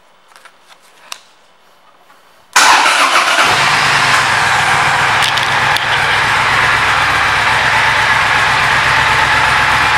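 A few faint clicks, then about two and a half seconds in the Triumph Thunderbird Storm's 1700 cc parallel-twin engine starts and settles into a steady idle.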